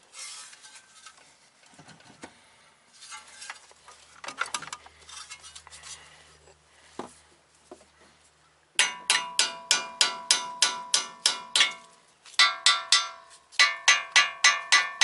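Hammer striking a steel chisel driven into the front steering knuckle's strut clamp slot to spread it so the old strut can drop out. The strikes come in three quick runs of ringing metal blows, about four a second, starting about nine seconds in. Before them come lighter clinks of tools and parts being handled.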